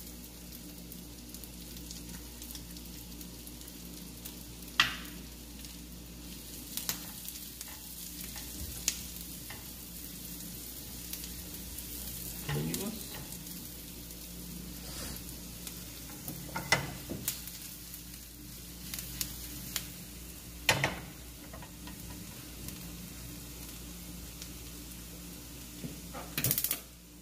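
Finely diced onion frying in butter in a pan, a steady sizzle. A spatula scrapes and knocks against the pan now and then as the onion is stirred, with the sharpest knocks near the end.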